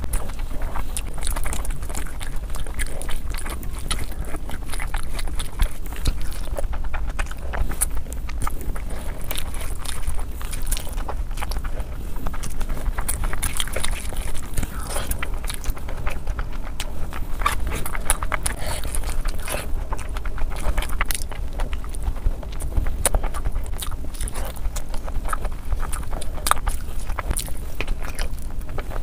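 Eating sounds sped up to double speed: a hand squishing and mixing rice with curry, and wet chewing and lip smacks, as a dense run of small clicks and crackles over a steady low hum.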